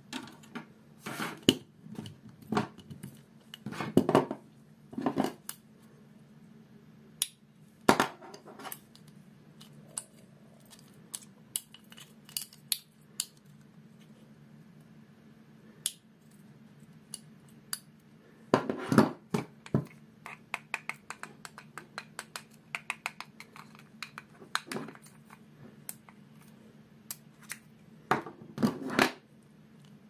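Hard plastic chair casters being handled and fitted: irregular clicks, knocks and rattles, louder clusters now and then and a quick run of small clicks around twenty seconds in, over a steady low hum.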